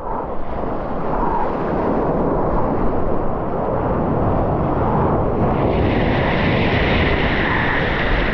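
Ocean water rushing and splashing around a surfboard, with a low rumble of wind and water on the camera microphone. About five and a half seconds in, a brighter hiss of breaking whitewater builds and holds.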